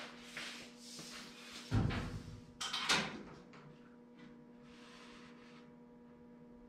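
Workshop handling sounds: scuffing, a dull thump a little under two seconds in, then a sharp clatter about a second later, over a steady electrical hum.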